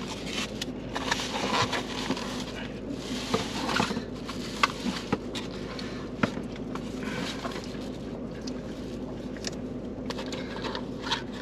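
Scattered clicks, scrapes and rustles of plastic takeout containers and cheap plastic forks being handled while eating, over a steady low hum.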